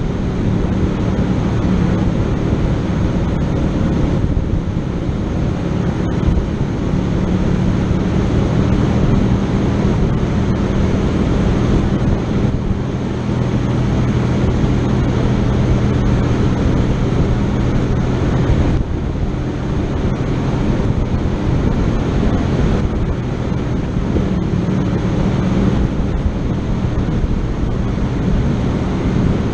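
A vehicle engine running steadily at low revs under a dense rushing noise, with no break.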